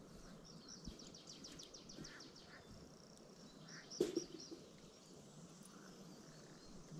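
Songbird singing: a fast trill of evenly repeated high notes lasting about two seconds, with a few more short chirps later. A single sharp knock about four seconds in is the loudest sound.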